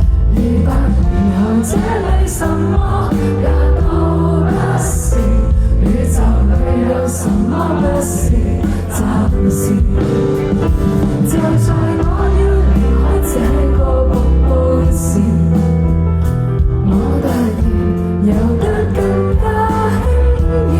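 Live band performance of a pop song, with singing over the instruments.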